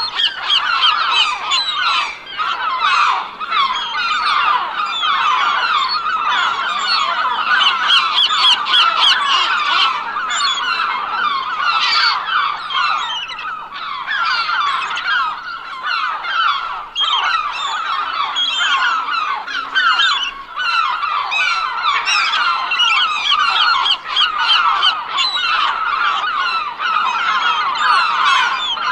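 A large flock of gulls calling, a dense chorus of many short overlapping cries.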